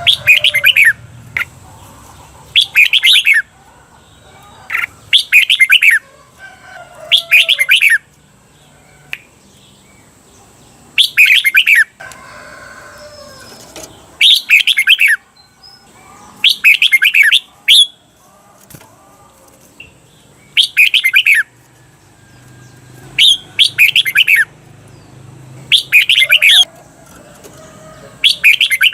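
Red-whiskered bulbul singing short, bright, warbling phrases, often two in quick succession, repeated every couple of seconds with short pauses between. This is the doubled song used to train caged bulbuls.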